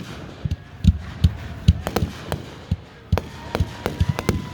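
Fireworks going off: a rapid, irregular series of bangs and pops, with a few faint whistling glides.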